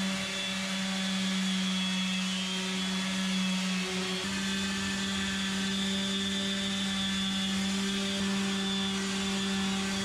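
Electric orbital sander with a vacuum dust-extraction hose, running steadily against the inside of a boat hull. It makes a steady hum that shifts slightly in pitch about four seconds in.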